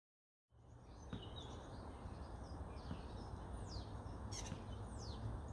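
Faint garden ambience after half a second of silence: birds chirping, with scattered short calls and two high falling whistles, over a low steady rumble.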